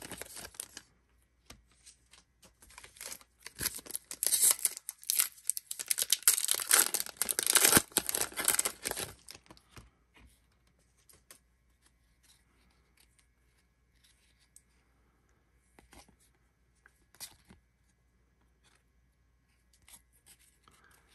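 Foil wrappers of two baseball card packs being crinkled and torn open, loud and crackling for several seconds in the first half. After that it goes quiet, with only faint occasional taps and rustles of the cards being handled.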